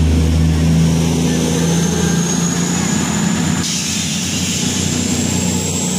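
CrossCountry Class 221 Super Voyager diesel-electric unit moving along the platform, its underfloor diesel engines giving a steady low hum with a thin high whine that rises slowly in pitch.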